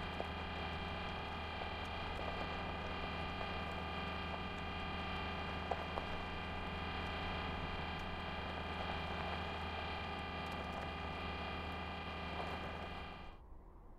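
A steady hum made of many even tones, with a few faint clicks, that cuts off abruptly near the end.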